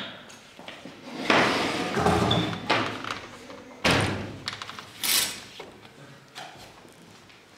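A door being opened and shut with a slam, among a few knocks and thuds. The loudest, sharpest bang comes about four seconds in.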